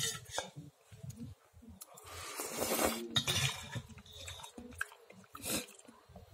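Metal spoon clinking against a dish, sharpest right at the start and again about five and a half seconds in, with quieter chewing and mouth noises between the clinks.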